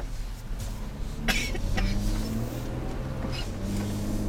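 Steady engine and road noise heard inside a moving car, with two short coughs about a second and a half in.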